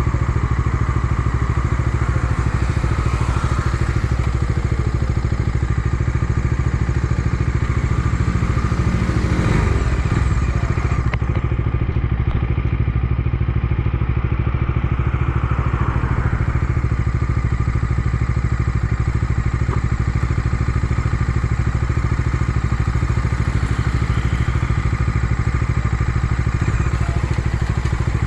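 Bajaj Dominar 250's single-cylinder engine running steadily as the motorcycle is ridden on the road, with a brief change in the engine note about ten seconds in.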